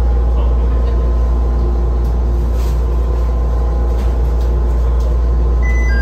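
Steady low hum inside an airport people-mover car as it creeps into its terminal station and comes to a stop. Near the end there is a short electronic chime of a few high tones.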